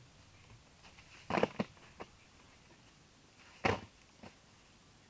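Loose soil tipped from a woven basket lands in a shallow dirt pit: one short rush of falling earth about three and a half seconds in. Two quick knocks and a light tap come a couple of seconds before it.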